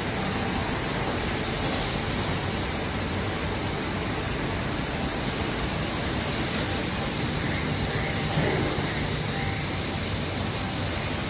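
YuShine VL-1600ATC CNC vertical turning lathe running, a steady, even hiss of machine noise.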